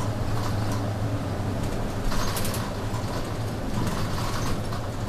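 City bus running steadily on the road, heard from inside the cabin near the front: a low, even engine hum with scattered rattles and clicks from the bus's fittings.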